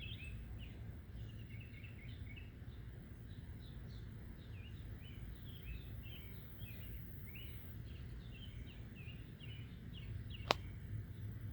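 Small birds chirping again and again over a low outdoor rumble, with one sharp click near the end.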